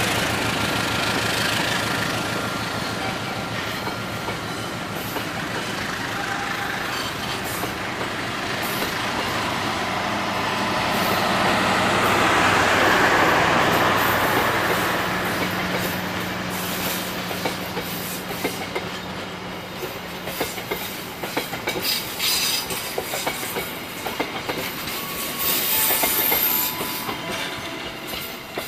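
Passenger train coaches rolling past at speed, steel wheels clattering over the rail joints. The rolling noise swells to its loudest about halfway through, then thins into separate sharp clacks as the last coaches go by.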